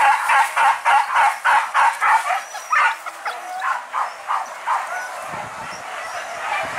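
A hunting dog barking rapidly over and over, about four barks a second. The barks slow about three seconds in and stop about two seconds later.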